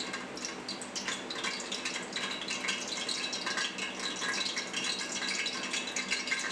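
Vanaspati fat (Dalda) sizzling and crackling as it melts in a hot, dry aluminium pot, a steady run of fine pops.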